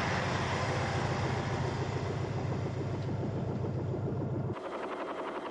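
A heavy engine running with a steady low hum, cut off abruptly about four and a half seconds in and replaced by a quieter, fast, even pulsing.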